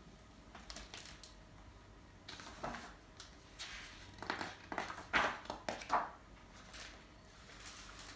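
Faint rustling and soft scraping of a picture book being handled and its pages turned, in a series of short, irregular strokes, the strongest about four to six seconds in.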